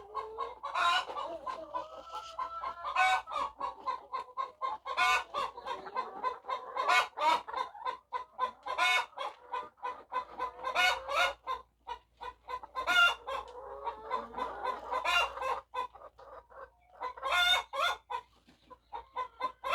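A flock of laying hens clucking continuously, with louder squawking calls about every two seconds.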